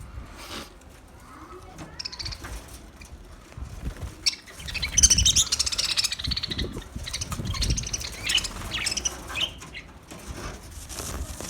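Budgerigars chirping and chattering, faint at first, then a dense run of rapid high calls from about four seconds in to about nine and a half seconds, over low fluttering thumps.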